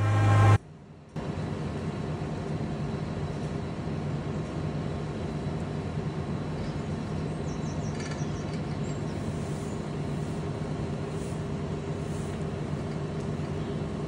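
Tractor engine running at a steady speed, the kind of farm tractor that drives a feed mixer wagon; the drone starts about a second in after a brief break and holds one even pitch throughout.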